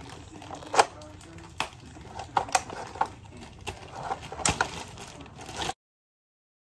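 Hard plastic toy parts of a Play-Doh kitchen playset clicking and knocking as they are handled and pressed into place, with several sharp clacks. The sound cuts off abruptly to silence near the end.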